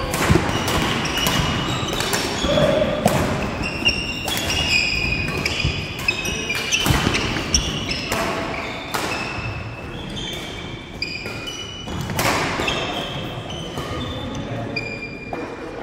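Badminton doubles play in a large sports hall: sharp racket strikes on the shuttlecock and players' footfalls, with trainers squeaking in short high chirps on the wooden court floor, all echoing in the hall.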